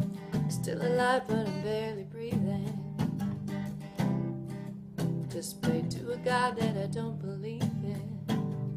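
Acoustic guitar strummed in a steady rhythm, with a woman's wordless sung notes wavering with vibrato about a second in and again around six seconds in.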